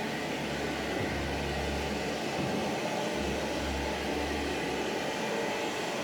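Hamra HM61 vacuum cleaner running steadily.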